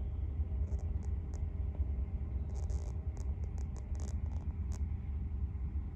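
Steady low rumble with a constant hum over it, and brief high-pitched ticks scattered through, about ten of them.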